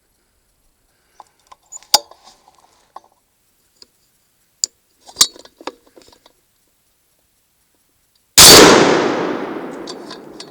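A few light clicks and clinks, then a hunting rifle shot about eight seconds in, its loud report fading away over two or three seconds of echo.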